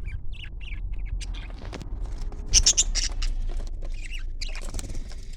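Flock of small parrots chattering with rapid high chirps, breaking into a louder burst of shrill squawks about halfway through.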